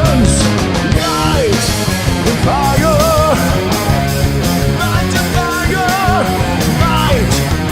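Heavy rock band playing live: distorted guitars and bass over a steady drumbeat, with a high melody line that slides and wavers in wide vibrato.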